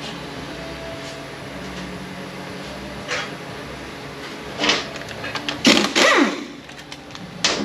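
Metal clanks and scrapes of tools and transmission parts being handled during disassembly, a few separate knocks with the loudest cluster about six seconds in, including a scrape that falls in pitch.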